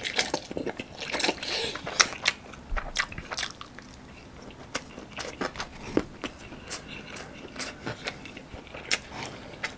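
Close-miked eating of spicy instant fried noodles: noodles drawn into the mouth and chewed, with many irregular sharp wet clicks and smacks of the mouth.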